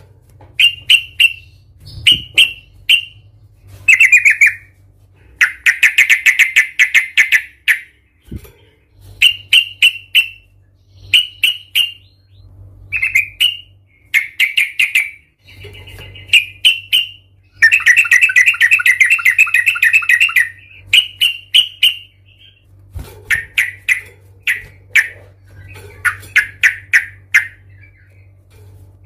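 Yellow-vented bulbul (trucukan) calling in loud, agitated bursts of rapid clipped "cuk-cuk" notes every second or two, twice running into a long fast chattering rattle. This is the bird's riled-up, fighting-mood call.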